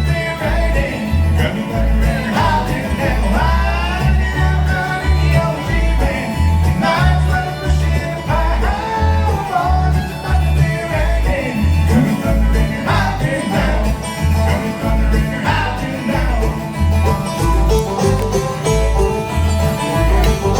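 Bluegrass band playing, with a bass line keeping a steady, even beat under sliding melody lines.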